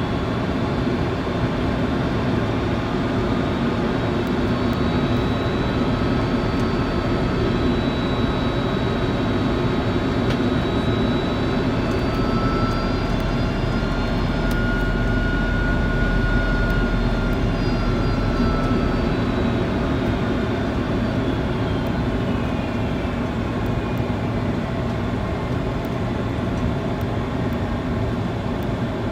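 Airliner cabin noise on the approach to landing: a steady roar of engines and rushing air, with a thin engine whine that rises slightly in pitch midway and then settles back.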